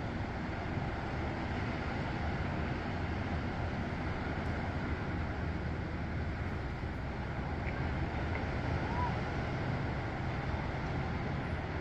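Steady low noise of wind and ocean surf, even throughout with no distinct events.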